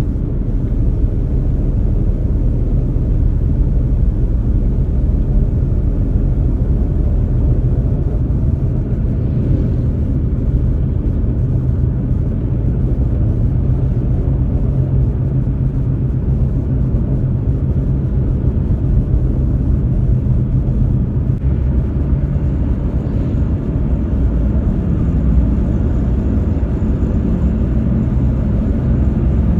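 Steady low rumble of a moving vehicle, heard from inside.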